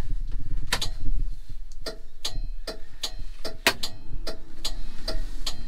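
Flasher relay of a 1960s Ford fire truck clicking steadily, about three clicks a second, beginning just under a second in: the emergency flashing-light circuit is switched on and working.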